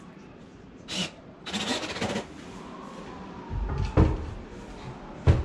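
Brief handling noises, then sharp knocks and thumps against a wooden vanity cabinet during installation. The loudest comes about four seconds in and another near the end.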